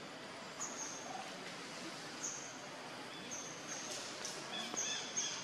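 Short high-pitched chirps, about one a second, over a steady outdoor hiss. From about four and a half seconds in, a lower, busier chirring joins them.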